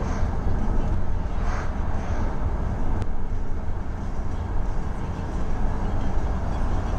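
Steady low rumble of a car driving on a city road, heard from inside the cabin: engine and tyre noise. A faint click about three seconds in.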